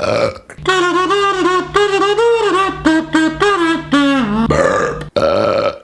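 A man belching loudly: a long, pitched burp that wavers and breaks into a run of short pulses, then a shorter burp near the end.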